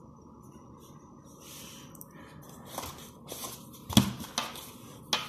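A deck of tarot cards being handled and shuffled, the cards rustling and clicking. The deck is knocked against a tabletop about four seconds in and again near the end, the first knock the loudest.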